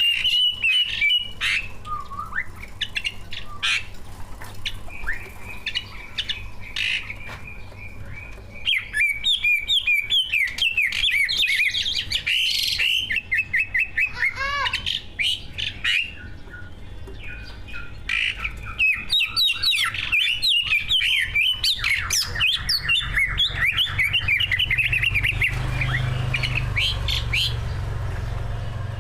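Greater green leafbird (cucak ijo), a competition-grade bird, singing continuously: a fast, varied stream of chirps, whistles and rapid trills with short pauses, over a low hum that grows louder near the end.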